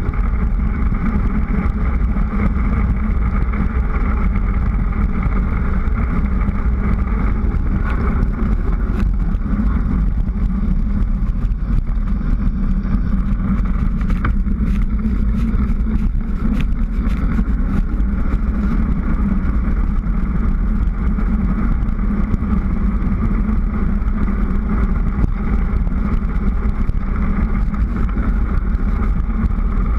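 Steady rush of wind over a bicycle-mounted GoPro's microphone during a fast downhill run on an asphalt road, with the tyres humming on the road underneath. A few faint ticks come about halfway through.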